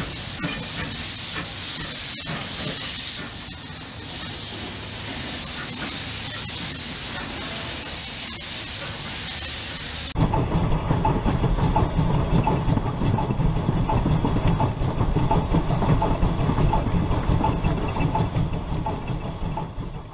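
Recorded full-size steam locomotive sounds: steady hissing steam for about ten seconds, then a sudden change to the louder, lower sound of a moving steam train with a regular beat.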